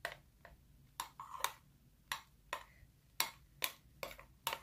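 Mixing shaving foam into glue in a bowl: a utensil makes a string of short clicks and taps against the bowl, irregular, about two or three a second.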